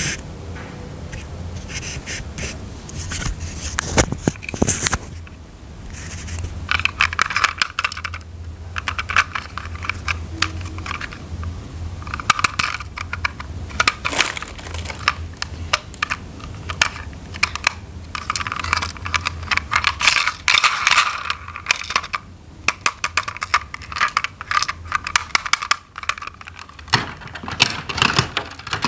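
Small plastic toy parts clicking, rattling and scraping as they are handled and fitted together, in bursts of rapid clicks over a low steady hum.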